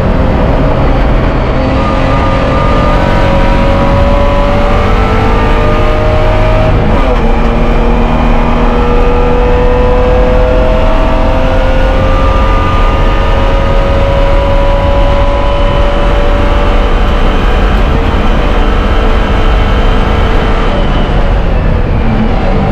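BMW E30 Spec race car's straight-six engine at high revs under full throttle, heard from inside the cockpit, its pitch climbing slowly as the car gathers speed, with a short break in the climb about seven seconds in.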